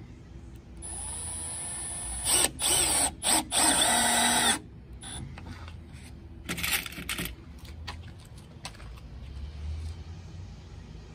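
Cordless Milwaukee drill driving 1-inch screws into pressure-treated plywood. The motor starts about a second in and runs steadily, then runs hard in several short stop-start bursts as a screw is driven home, with another short burst a few seconds later.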